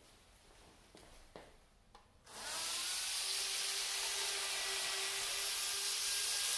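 A few faint clicks, then about two seconds in an N gauge model train starts moving: its small electric motor whines, rising in pitch over half a second as it speeds up, then runs steadily under a loud hiss.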